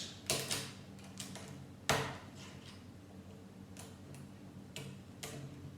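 Lego plastic pieces clicking and tapping as they are handled and pressed together: a handful of sharp, scattered clicks, the loudest about two seconds in.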